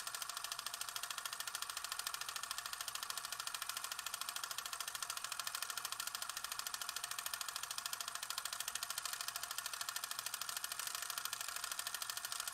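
A fast, even mechanical clatter, many strokes a second, over a hiss, running steadily without change.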